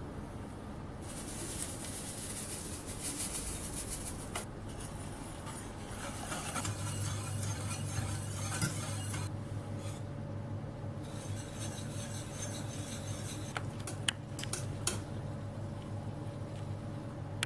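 Sugar poured into a steel pot of milk and flour with a soft hiss. Then a wire whisk stirs the mixture, scraping against the steel pot with a few light clinks, over a low steady hum.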